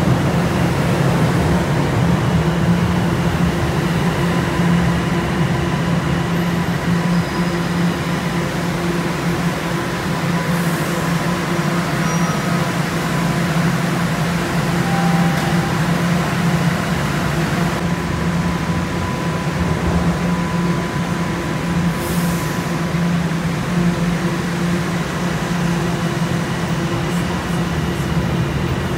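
Toronto TTC subway trains at a station platform: a steady rumble and hum of the trains moving along the platform and standing in it.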